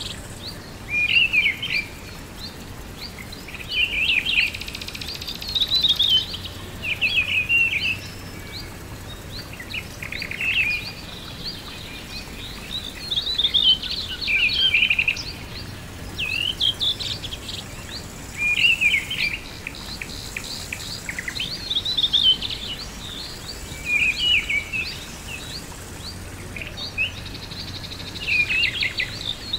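Birds singing: short, quick chirping phrases that come again every two to three seconds, over a steady hiss in the background.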